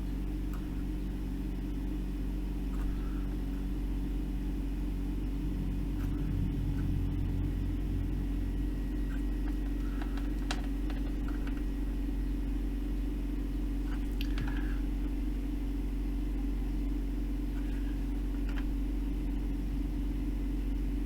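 Steady low hum of background equipment, with a few faint light clicks scattered through it.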